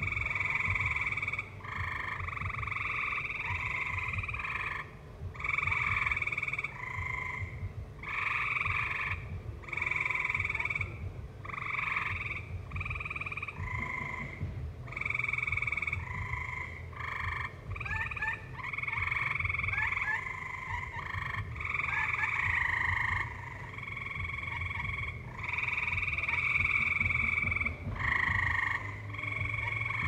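A chorus of tree frogs calling at night: overlapping trilled calls, each lasting about a second, follow one another almost without a break. A steady low rumble lies underneath.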